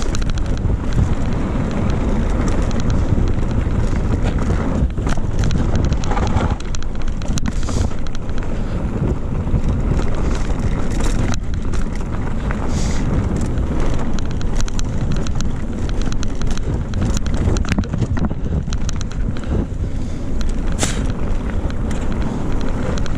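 Wind buffeting the action camera's microphone as a mountain bike rolls down a loose gravel and rock track, with a steady rumble from the tyres and frequent short clicks and rattles from stones and the bike.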